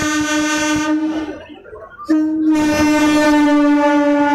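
Electric multiple unit (EMU) local train's air horn sounding two long blasts: the first stops about a second in, the second starts about two seconds in and holds on, over the rumble of the passing train.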